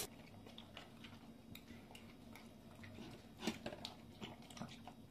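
German shepherd eating wet food from a slow-feeder bowl: faint licking and chewing with scattered small clicks, one a little louder about three and a half seconds in.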